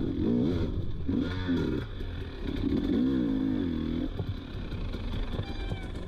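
Dirt bike engine revving up and down in quick throttle bursts over rocky ground, then dropping to a lower, uneven running about four seconds in. Light clattering comes from the bike over the rocks.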